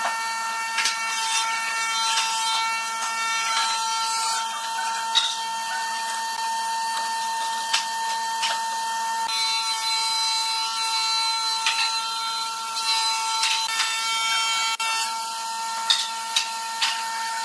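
A steady hum of several high held tones, which shifts about halfway through. Over it come scattered light taps and clicks of a steel rule and pencil being handled on pine boards.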